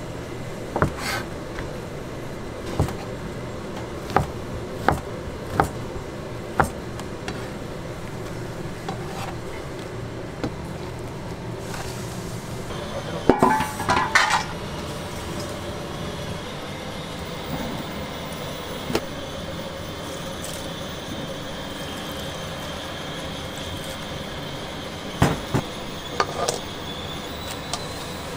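A large knife chopping through a stack of fish cake sheets on a cutting board: a string of sharp single chops, roughly one every second or less, in the first seven seconds. About halfway through comes a short clatter of a metal bowl against a pan, and near the end a metal spoon knocks and scrapes in a wok while fish cake strips and carrot are stir-fried, all over a steady kitchen background noise.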